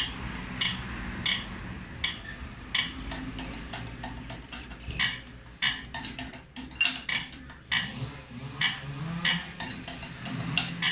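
Tractor diesel injector nozzle on a hand-pump nozzle tester, popping out short, sharp spray bursts one after another as pressure is pumped up to its opening pressure. A steady low hum runs underneath.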